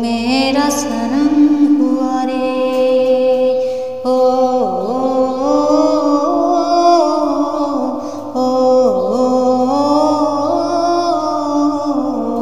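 A woman singing a slow Hindi film-song melody without words, holding long notes that dip in pitch and come back about every four seconds.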